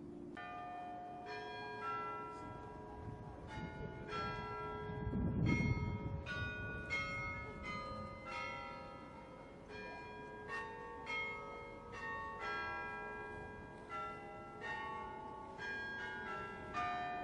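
Carillon of the Peter and Paul Cathedral bell tower playing a tune: single bells struck one after another, about one or two a second, each note ringing on under the next. A brief low rumble about five seconds in.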